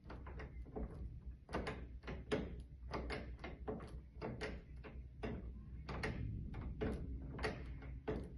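Lock picking on a vending machine's door lock: irregular metallic clicks and scrapes from the picking tools, two or three a second, with the door rattling.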